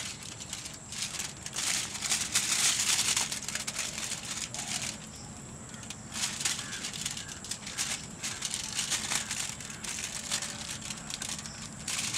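Aluminium foil crinkling and rustling in irregular bursts as hands handle and rub a raw whole chicken lying on the sheet.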